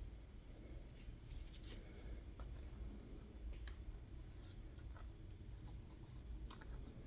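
Faint, scattered small clicks and light scraping of metal lock parts being worked in a CISA AP3 pin-tumbler lock, a handful of separate ticks over low background hum.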